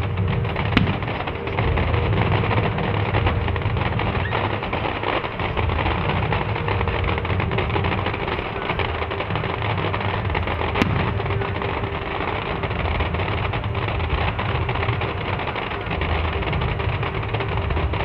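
Fireworks going off in a dense, continuous crackle over a low rumble, with two sharper cracks, one about a second in and one near the middle.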